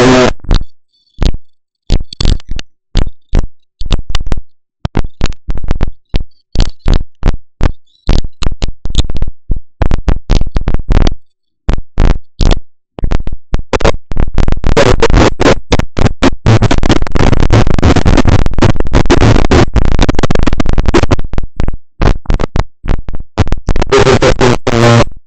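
Loud crackling static from a faulty microphone: separate pops and crackles that thicken into a dense, continuous crackle for several seconds past the middle, then break up into separate pops again near the end.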